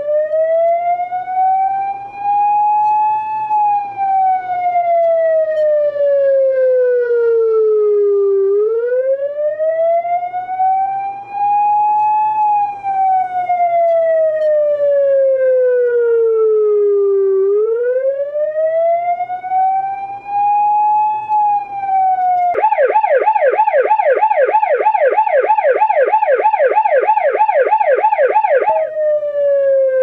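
Fyr-Fyter Penetrator police siren on its wail: slow rising and falling sweeps, each rise about four seconds and each fall about five. About two thirds of the way through it switches to a fast yelp, warbling about three times a second for some six seconds, then goes back to the falling wail.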